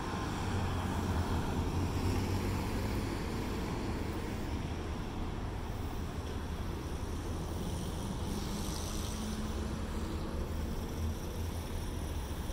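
Steady low rumble of street traffic on a city boulevard, with a car passing about eight to nine seconds in.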